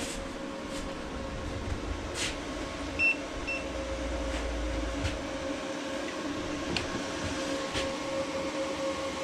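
Steady electrical hum of Growatt solar inverters running while charging a battery bank, with scattered light clicks of handling. Two short electronic beeps sound about three seconds in.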